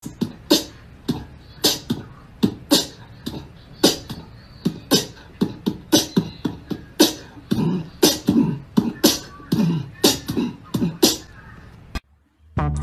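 A quick, uneven run of sharp clicks or slaps, two or three a second, with a person's voice mixed in. It cuts off suddenly near the end.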